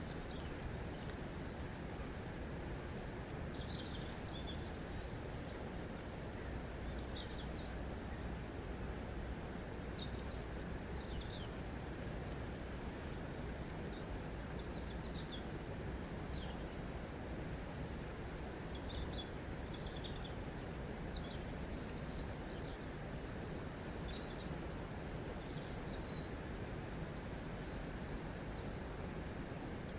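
Steady rush of running water, with small birds chirping in short, high calls scattered throughout.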